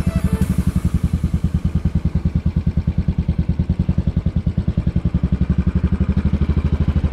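Royal Enfield Continental GT 535's single-cylinder four-stroke engine running at low revs, giving a steady, even low pulsing beat.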